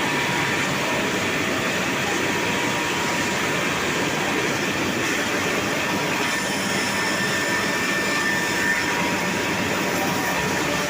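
Single rip saw machine running with a steady mechanical rumble and a faint steady whine.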